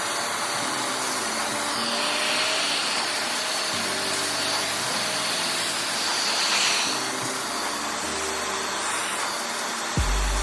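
Steady whirring hiss of a small blower or motor-driven tool running evenly, under background music.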